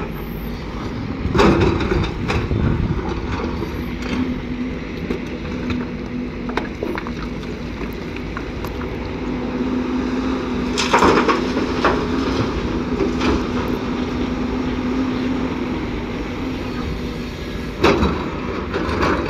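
JCB tracked excavator's diesel engine running steadily under load as it digs and loads rock and soil into a dump truck. Loud clattering crashes of rocks come about a second in as the bucket digs into the pile, again around the middle as the load is dumped into the truck's steel bed, and once more near the end.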